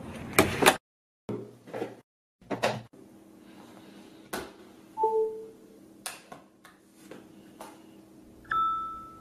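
Door and handling sounds: a door latch clicking and a run of sharp knocks and clacks. These are followed by short electronic beeps, a brief two-note one about five seconds in and a longer one near the end.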